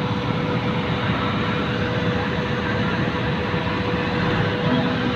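Ship's cargo crane machinery running with a steady mechanical drone and hum while it hoists a container load; a lower steady tone joins in near the end.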